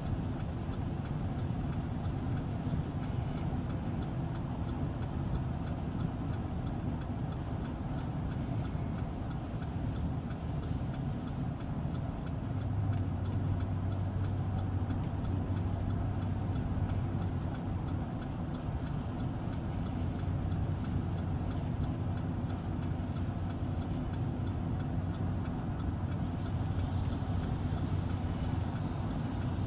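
Engine and road noise of a moving vehicle heard from inside the cab, a steady drone while driving on a snowy, icy highway. A low steady hum joins about twelve seconds in and holds on.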